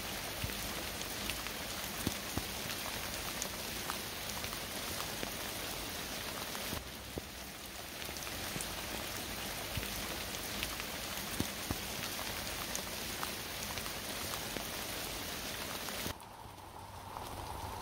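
Steady rain falling, with many single drops ticking out of the hiss. About 16 seconds in the rain sound drops away, leaving a quieter background with a faint steady tone.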